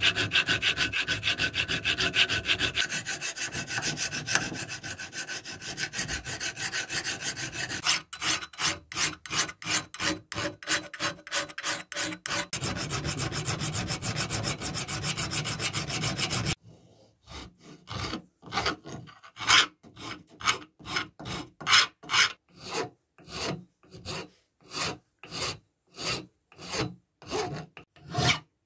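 Flat metal file rasping across an antler handle clamped in a vise, in quick back-and-forth strokes. Past the halfway point the strokes turn slower and separate, each push a distinct rasp with a short gap after it.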